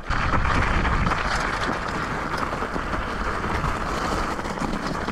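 Btwin Rockrider mountain bike descending a rocky downhill trail at speed: tyres rumbling and the bike rattling over the rocks, with wind rushing on the microphone.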